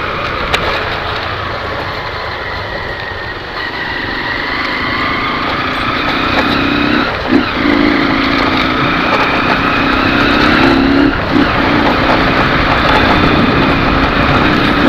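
Honda CG 150 Sport's single-cylinder four-stroke engine running with its air filter removed. The note rises slowly in pitch and loudness through the second half, broken briefly twice, once near the middle and once about three-quarters through.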